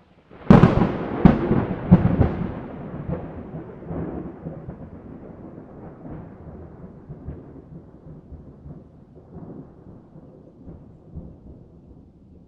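A thunderclap: a sudden sharp crack about half a second in, a few more cracks within the next two seconds, then a long rumble that slowly fades away.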